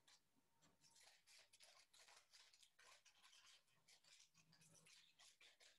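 Very faint snipping of scissors cutting through a stack of paper, repeated short snips, barely above near silence.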